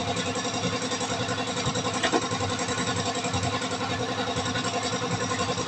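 Suzuki F6A three-cylinder engine running steadily at idle.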